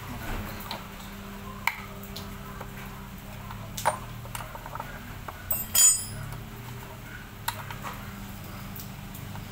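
Metal hand tool clinking and tapping against the bolts of a scooter's crankcase cover as they are loosened: a handful of sharp clicks, the loudest a ringing metal clink about six seconds in.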